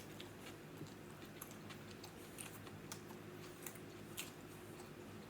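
Close-up chewing of a mouthful of Italian hoagie, soft wet mouth clicks and smacks scattered a few times a second.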